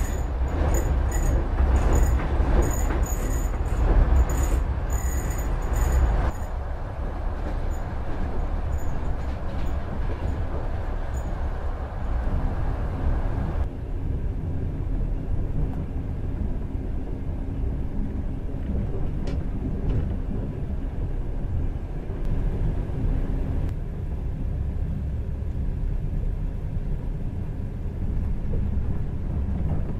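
Passenger sleeping car of a moving train, heard from inside the carriage: a steady low rumble of wheels on rails. A run of short high squeaks comes in the first six seconds. The noise changes abruptly at about six, fourteen and twenty-four seconds.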